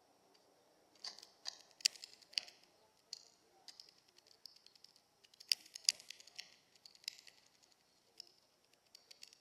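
A grackle at a bird feeder: bursts of sharp clicks and short raspy sounds, in two clusters about a second in and again past the middle, over a faint steady high tone.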